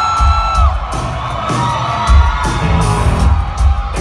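Live band music from the stage, with low drum and bass hits under a cheering, whooping crowd; a long held high note ends just under a second in.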